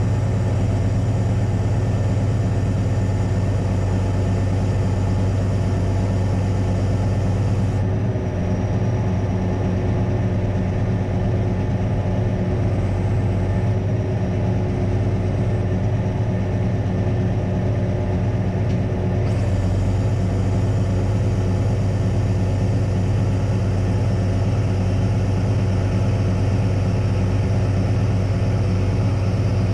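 Crane truck engine running steadily, powering the knuckleboom crane's hydraulics, with a strong low hum throughout.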